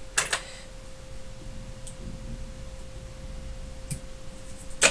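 Quiet room with a steady low hum and a faint steady tone running through it. Just after the start there is one short sharp rustle or click, and later a couple of faint ticks.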